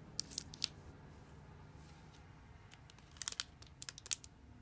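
Plastic candy wrapper crinkling in a few short bursts of crackles, just after the start and again about three seconds in, over quiet room tone.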